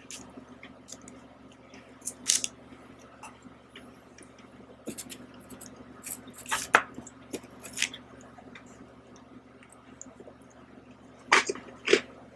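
Close-miked eating of ice cream from a spoon: wet, squishy mouth sounds and smacks in short scattered bursts, with a louder cluster near the end.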